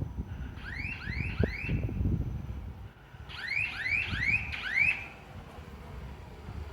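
An electronic alarm sounding quick rising chirps, about three a second, in two bursts of four and five, over a low engine rumble.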